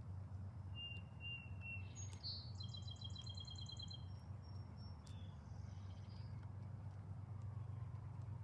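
A small songbird singing: three short whistled notes about a second in, then a rapid trill and a few more high notes, over a steady low hum.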